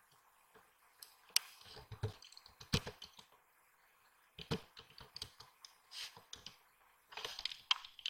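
Typing on a computer keyboard: irregular keystrokes in two bursts, one about a second in and another from about four and a half seconds on, with a short pause between.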